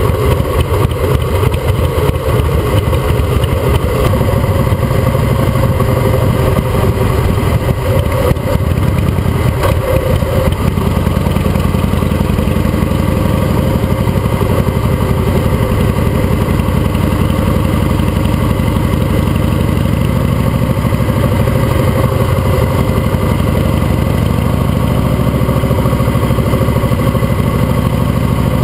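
Custom Harley-Davidson V-twin motorcycle engine running as the bike rides slowly through city traffic. The note settles into a steadier, more even run about ten seconds in.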